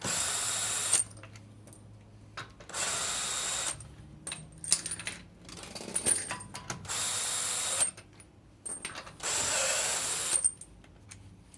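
A power tool spinning off the wheel nuts of a Land Rover Discovery 4's rear wheel in four even bursts of about a second each. Small clicks and clatter of the nuts and tool come between the bursts.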